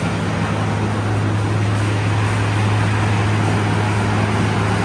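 Large fan machinery running: a steady low hum under an even rush of air.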